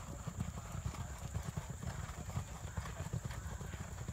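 Hoofbeats of several racehorses galloping together on a dirt track: a rapid, uneven stream of dull thuds.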